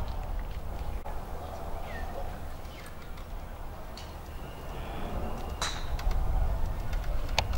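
Open-air ambience on a golf course: a steady low rumble with a few scattered bird calls and faint distant voices, and a single sharp click near the end.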